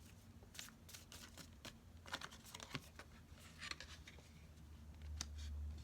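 Faint, scattered soft clicks and short rustles of tarot cards being handled, over a low steady hum.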